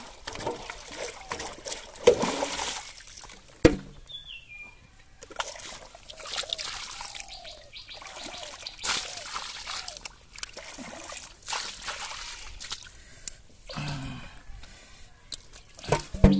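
Muddy water splashing and trickling in irregular bursts as catfish thrash in a shallow puddle and water is poured and scooped over them with a small plastic bucket.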